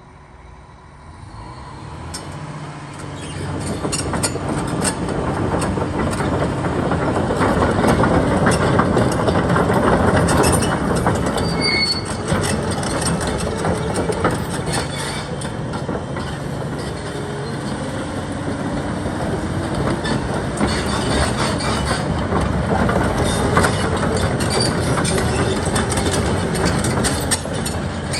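Liebherr R946 SHD crawler excavator working: its diesel engine and hydraulics rise over the first few seconds into a loud, steady heavy-machine noise, with frequent metallic clanks and a brief high squeal about halfway through.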